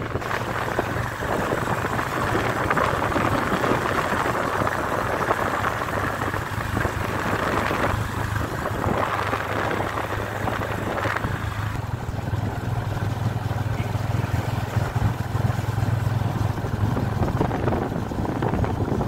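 Yamaha FZ25's single-cylinder engine running steadily while the motorcycle cruises, with a low hum under heavy wind rush on the microphone.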